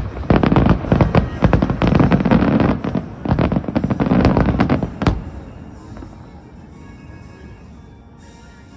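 Aerial fireworks bursting in a rapid barrage of pops and bangs for about five seconds, ending with one last sharp crack, after which the bursts die away.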